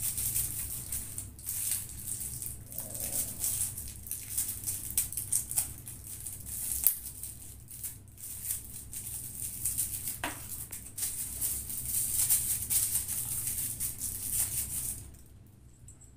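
Close scratching, rustling and small sharp clicks from handling the Boya BY-M1 microphone's small plastic battery housing while a button cell is fitted into it, heard through a phone's built-in mic. The scratchy handling noise stops about 15 seconds in.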